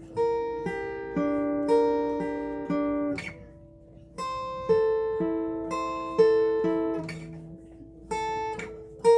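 Acoustic guitar played slowly, notes plucked about twice a second and left to ring, with a brief pause a little after three seconds in.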